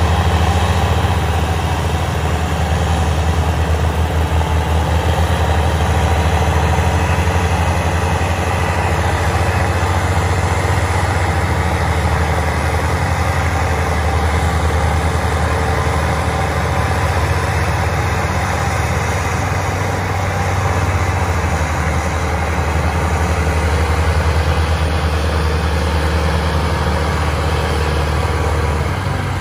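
Diesel engines of two Belarus tractors running steadily and hard under load, one tractor towing the other and its loaded trailer through mud, with a strong low hum throughout.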